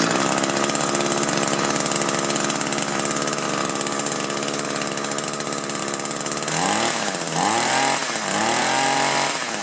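Echo string trimmer's two-stroke engine, pull-started with its fuel tank vent removed to test whether a clogged vent was choking it out. It catches at once and runs steadily. From about two-thirds of the way in, it is revved up and back down three times.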